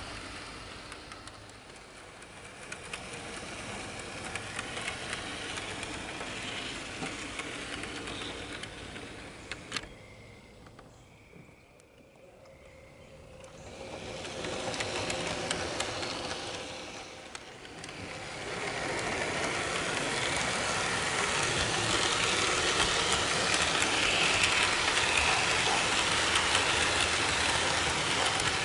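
HO-scale model freight train rolling along its track, the wheels clicking over rail joints and the cars rumbling. It quiets to a lull around the middle, then grows louder in the second half as the cars pass close.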